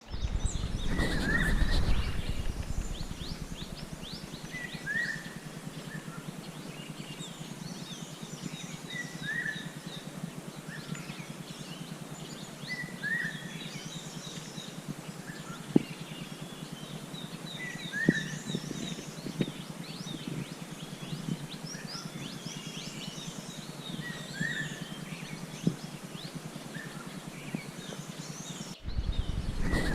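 Several wild birds calling. One short call comes back every four seconds or so, over many quicker, higher chirps and twitters. A low rumble sits under the first two seconds and returns near the end, with a few sharp clicks in between.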